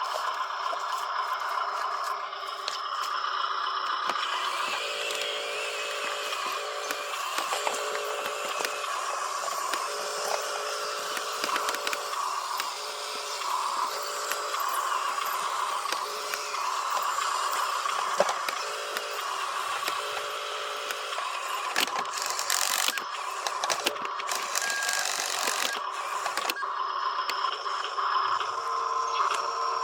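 Toy RC construction vehicles working: small electric motors running, with plastic parts rattling and scraping and short electronic tones repeating throughout.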